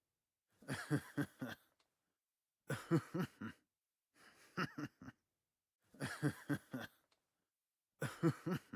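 A woman's meme laugh: five short bursts of quick 'ha-ha-ha' pulses, each about a second long, repeating every couple of seconds with silence between.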